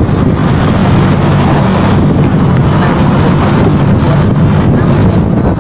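Steady wind rushing over the microphone of a camera on a moving motorcycle, with the motorcycle's engine running underneath.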